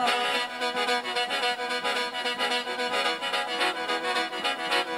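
Khaen, the Isan bamboo free-reed mouth organ, playing a sustained chordal instrumental passage of mor lam over a steady percussion beat, with no singing.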